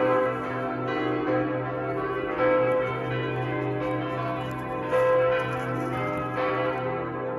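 Church bells pealing: several bells struck one after another, each new strike landing about once a second over the long, overlapping ring of the others.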